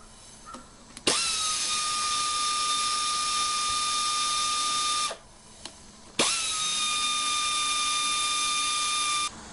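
Cordless power driver running steadily with a high whine while backing out the screws of a transmission valve body cover. It runs twice, for about four and three seconds, and each run starts with a click and stops abruptly.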